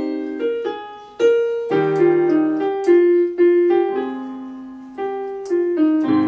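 Electronic keyboard played by two people: a simple melody picked out one note at a time, with held chords coming in underneath about two seconds in.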